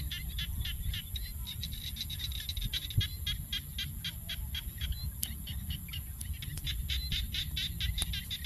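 An animal calling in a steady, rapid train of short, high-pitched chirps, about six a second, over a low rumble.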